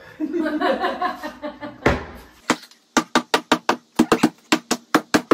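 A hammer knocking on a wooden door frame: one heavier knock about two seconds in, then a fast run of light, sharp taps, about five a second.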